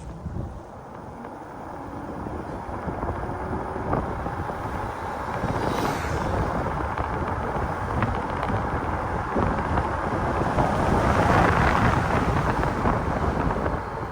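Wind rushing over the microphone with road noise during a ride on a 5000 W electric bike, getting steadily louder as it speeds up and peaking near the end.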